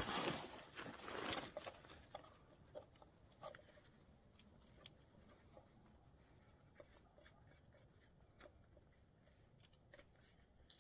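Faint clicks and small metal ticks of pliers working on a walk-behind tractor's throttle linkage, scattered and irregular, opening with a brief burst of rustling noise over the first second and a half.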